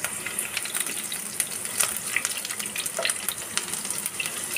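Hot mustard oil sizzling in a nonstick wok as a tempering of nigella seeds, dried red chilli and sliced garlic fries, a steady hiss with many small crackles and pops.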